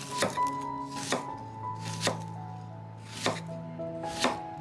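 Kitchen knife cutting through food onto a cutting board in single strokes, about six of them at an uneven pace of roughly one a second.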